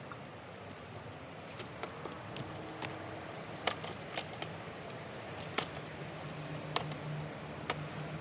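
Wood campfire crackling: scattered sharp pops at irregular intervals over a steady low hiss, with a faint low hum joining in the second half.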